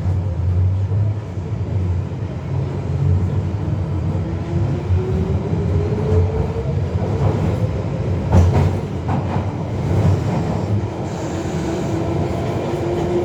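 London Underground 1973 stock train running, a loud steady low rumble with a motor whine that slowly rises in pitch in the middle and again near the end. A cluster of sharp clicks from the wheels over the rails comes a little past the middle.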